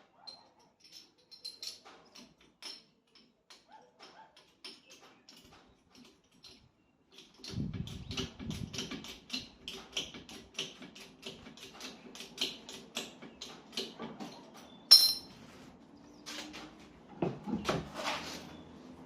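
Metal tools clicking and clattering. Scattered light ticks at first, then from about seven seconds in a fast run of clicks, about six a second, with one sharp loud click near the middle and more clatter near the end.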